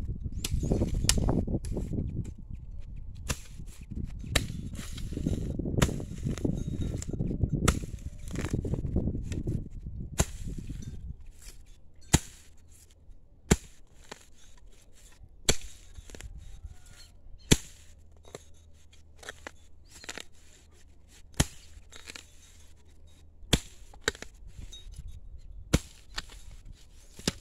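A hoe chopping into soil and grass clumps while weeding, with sharp single strikes every second or two. A low rumble runs under the strikes until about eleven seconds in.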